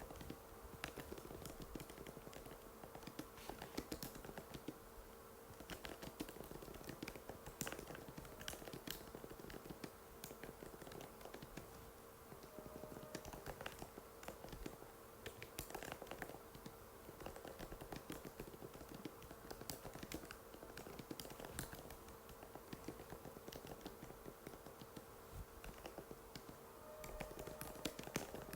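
Continuous typing on an Apple MacBook butterfly keyboard: rapid, irregular, light key clicks, over a faint steady hum.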